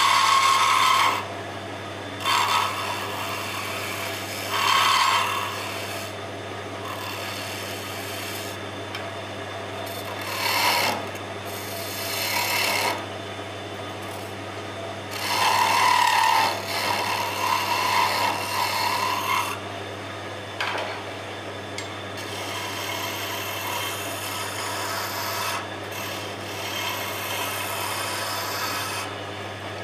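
A wood lathe runs with a steady low hum while a hand-held turning tool cuts into the spinning wooden spindle, making scraping, rasping cuts. The cuts come in several short bursts, then one long cut of about four seconds starting about fifteen seconds in.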